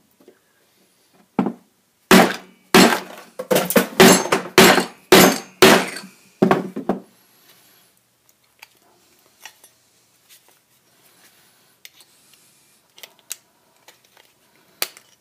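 A hammer strikes a screwdriver or chisel wedged into a cast conduit end connector, about a dozen sharp metallic blows in quick succession, to knock the steel retaining clip loose. Faint clicks of handling follow.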